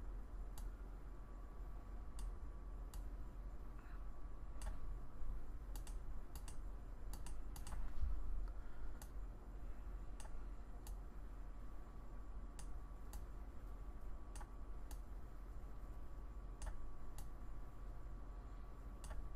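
Scattered, irregular clicks of a computer mouse and keyboard, some a few seconds apart and some in quick clusters, over a steady low hum.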